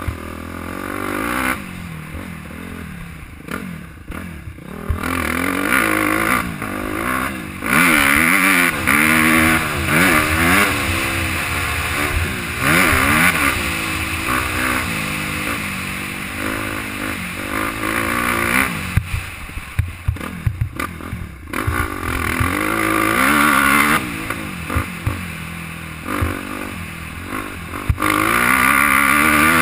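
Suzuki dirt bike engine being ridden hard on a motocross track, its pitch repeatedly climbing under throttle and dropping as the rider shifts and backs off. It eases off for a couple of seconds past the middle, then is revved hard again near the end, heard from the rider's helmet camera.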